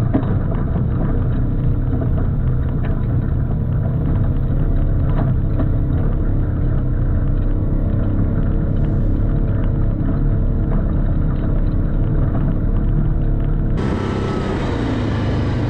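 Utility ATV and side-by-side engines running steadily as they drive through a muddy trail, with scattered clicks and knocks. About 14 seconds in the sound cuts to an ATV engine heard from on board while riding.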